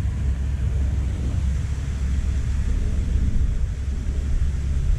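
Wind buffeting the microphone: a continuous low rumble with a fainter hiss above it.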